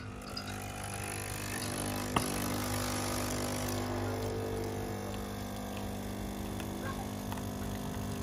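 Nespresso capsule coffee machine's pump buzzing steadily as it brews, with coffee streaming into a stainless steel mug. There is a single sharp click about two seconds in.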